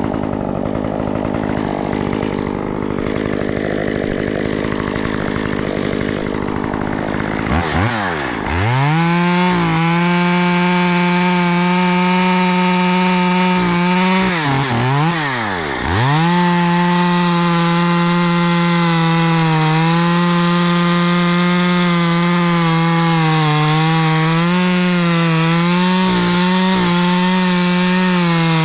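Stihl chainsaw idling, then revved to full throttle about seven and a half seconds in. The engine speed drops and climbs back twice near the middle. The saw then runs at high speed with small dips in pitch as it cuts into oak.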